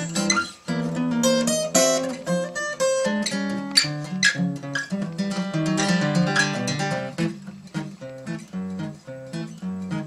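Acoustic guitar played solo, a run of picked notes and strummed chords that grows softer from about seven seconds in.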